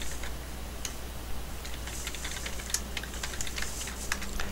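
Typing on a computer keyboard: irregular key clicks as a search query is entered, over a low steady hum.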